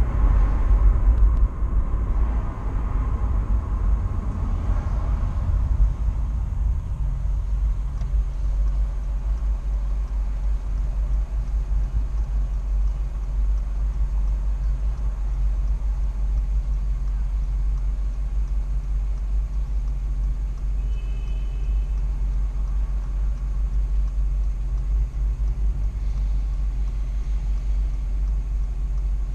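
Car driving, heard through a dashcam: a steady low rumble of road and engine noise. It is louder with more mid-range noise for the first few seconds, then settles.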